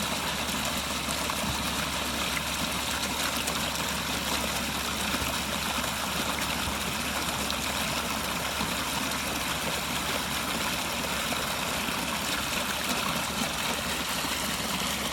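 Pondless backyard waterfall running: water splashing steadily down over stacked rocks.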